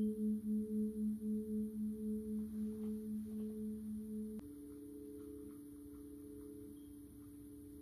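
Now Tone Therapy System playing a steady low pure tone with a fainter higher overtone, pulsing about three times a second and slowly fading. About four seconds in, a click, and it switches to a slightly higher, steadier and quieter tone.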